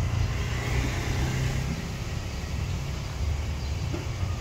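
Street traffic noise: a steady, low engine rumble from passing vehicles.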